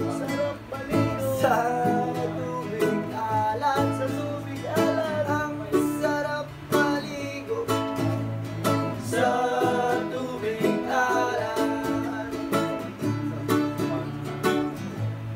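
A nylon-string classical guitar strummed together with a ukulele, playing a song.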